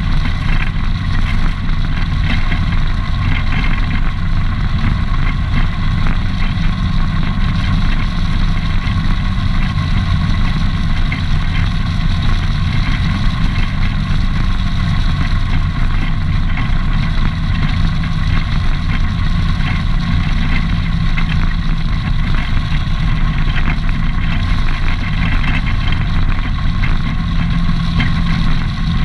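ATV engine running at a steady cruising speed, heard close up from the handlebars, over a steady rush of wind and tyre noise.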